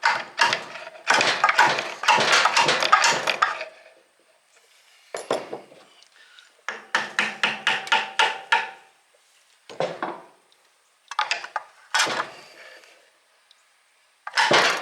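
Repeated hammer blows on the metal parts of an old milling machine, in quick runs of strikes separated by short pauses, as a stuck part is knocked loose.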